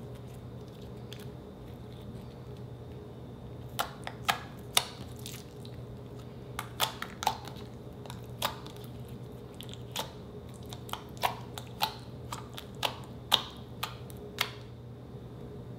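Green slime being stretched and pressed by hand, giving sharp wet pops and clicks as trapped air bursts, scattered irregularly from about four seconds in. A low steady hum runs underneath.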